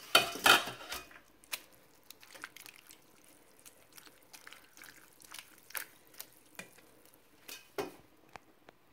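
Water splashing and dripping as a hand stirs and presses chopped dandelion leaves down into a pot of cold water. The splashing is loudest in the first second, then comes in scattered small splashes, with a louder one near the end.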